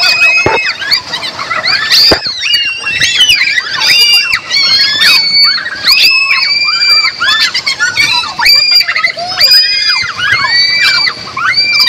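Several women screaming and shrieking over and over, high-pitched overlapping cries, while sliding down an enclosed tube water slide.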